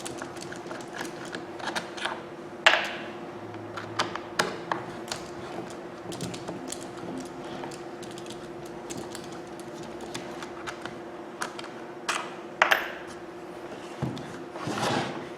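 Screws being undone from the handle housing of a Bosch 11255VSR rotary hammer with a screwdriver: scattered small clicks, taps and scrapes, with two sharper knocks about 3 s in and near 13 s. A steady hum runs underneath.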